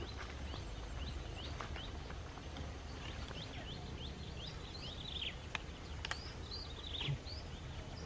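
A flock of munias (emprit) chirping, many short, quickly falling calls overlapping and growing busier, over a steady low outdoor rumble. Two sharp clicks a little past halfway.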